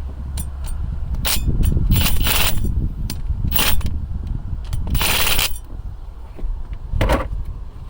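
Metal clinks and rattles of a brake line flaring tool being handled as its stopper and dies are taken out and changed. There is a string of sharp knocks, with two longer scraping rattles, over a low wind rumble.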